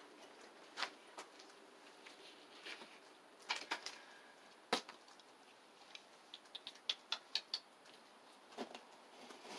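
Faint, scattered knocks and clicks from ceiling demolition work, a sharper knock near the middle and a quick run of light taps later on.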